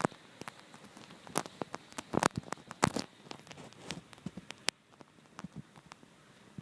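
Irregular light clicks and taps with a scattered crackle, most of them clustered and loudest about two to three seconds in.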